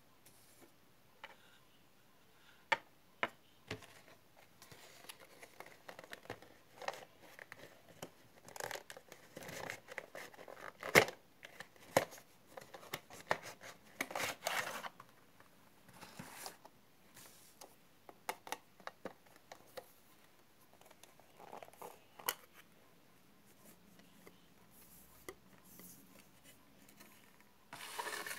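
Handling noises at a desk: paper and a cardboard watercolour box rustling and scraping, with scattered taps and clicks on the tabletop and quiet stretches between.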